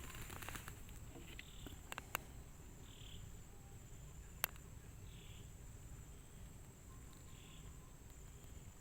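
Faint outdoor insect chorus: a steady high-pitched drone, with a short chirp repeating about every two seconds and a few sharp clicks.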